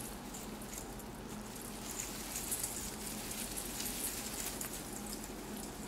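Christmas tree branches rustling and crackling with many small irregular ticks as a cat climbs about among them, over a faint steady low hum.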